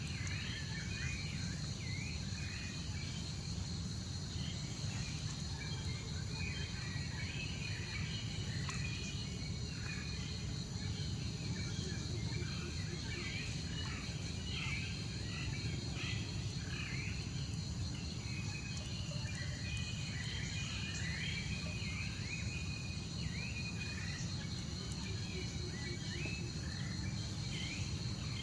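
Outdoor ambience: insects drone steadily in high, even tones, with many short high chirps scattered throughout over a steady low rumble.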